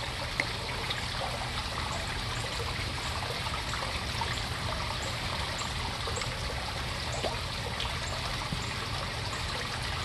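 Steady trickle of running water.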